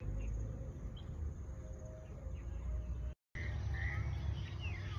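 Outdoor rural ambience: a steady low rumble with faint, short chirping calls. The sound drops out briefly a little over three seconds in, and the calls become clearer after it, with one falling call near the end.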